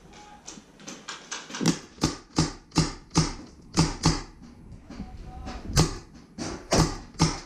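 Paintball fire around a small plywood bunker: a rapid, uneven string of sharp pops and knocks, two or three a second, pausing for about a second midway before picking up again.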